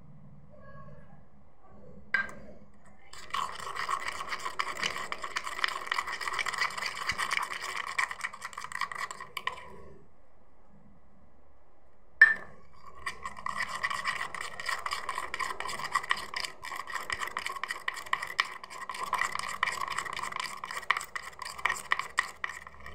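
Steel spoon stirring and scraping quickly around a steel bowl of glitter slime mixture, in two long spells, each begun by a sharp clink of spoon on bowl.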